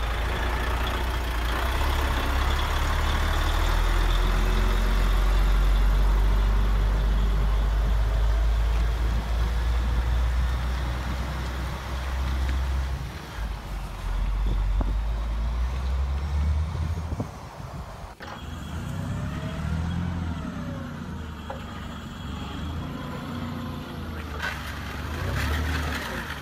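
Radio-controlled model truck, a converted Bruder Scania R-series, running and driving off with a loud, low, steady rumble. About 18 s in, the rumble cuts off, and a quieter sound with rising and falling whines follows, from the RC model forklift.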